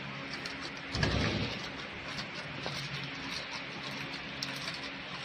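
Shrink sleeve labeling machine humming steadily, with scattered light clicks as its mould head is turned by hand and a brief low rumble about a second in.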